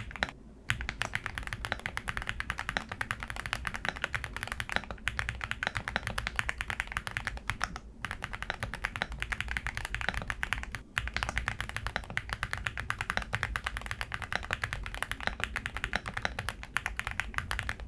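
Fast, continuous typing on a VARMILO Sword 68 full-aluminium, gasket-mounted mechanical keyboard, many key clicks a second. The typing stops briefly near the start and again about two-thirds of the way through.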